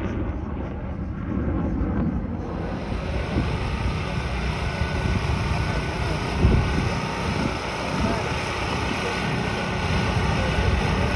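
Fighter jet engine noise, a steady rush of jet exhaust with wind buffeting the microphone. About two seconds in it changes from a distant aircraft in flight to a jet rolling along the runway.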